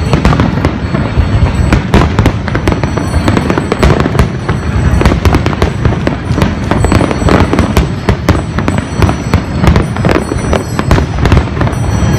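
Aerial fireworks shells bursting in a continuous barrage: overlapping booms and sharp cracks following one another several times a second, with no pause.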